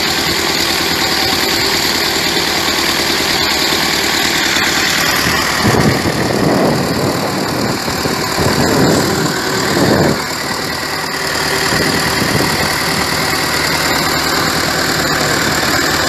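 An engine running steadily. Between about six and ten seconds in it is broken up by louder, churning surges of noise as ice and water are torn up while the sunken tractor is hauled out.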